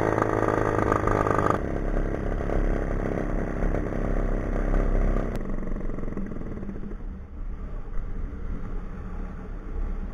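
Powered paraglider trike's engine and propeller running in flight, with wind rushing over the camera. The engine's steady tone changes about a second and a half in and thins out around five seconds in, leaving mostly wind rush.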